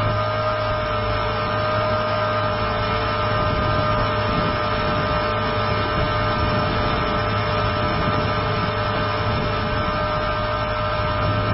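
Align T-Rex 450 electric RC helicopter heard from its own onboard camera in flight: the steady whine of the motor and drive gears over the drone of the main rotor as it climbs.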